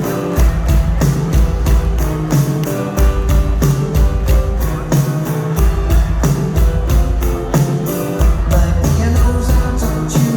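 A rock band playing live through a concert PA: drums keeping a steady beat under bass and guitars.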